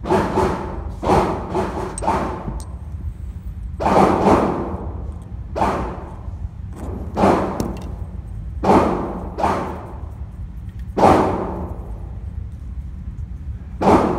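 Gunshots from other shooters on an indoor range: about a dozen sharp reports at irregular intervals, some in quick pairs, each with a short echoing tail.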